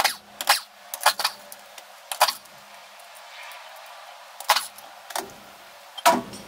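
A Kubota compact tractor's front wheel coming off: a series of sharp, irregular metallic clinks and knocks as the lug nuts are handled and the wheel is worked off the hub.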